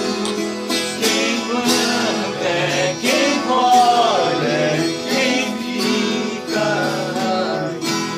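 Viola caipira and acoustic guitar playing a moda de viola together, with a man's voice singing along. A long sung note with vibrato comes about three to four seconds in.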